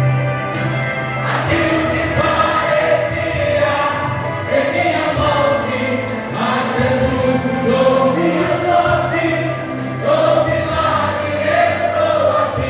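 Church vocal group singing a gospel song together, several voices holding long, sustained notes.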